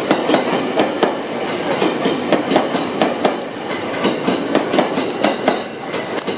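E231 series electric multiple unit rolling through the station, its wheels clacking steadily and irregularly over rail joints and points.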